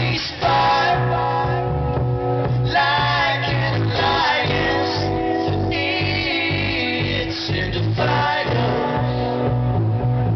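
Live acoustic music: two acoustic guitars strummed with singing over them.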